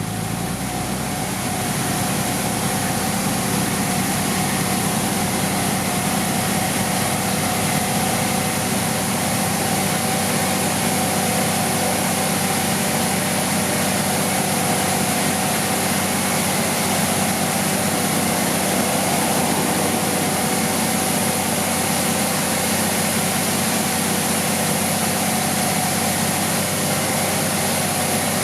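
Construction machine's engine idling steadily, with an even hum and a faint constant whine.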